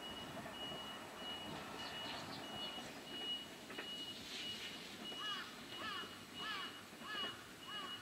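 A high electronic warning beep repeating about twice a second over faint distant rail and street noise. From about five seconds in, a repeated short chirp joins it, about twice a second.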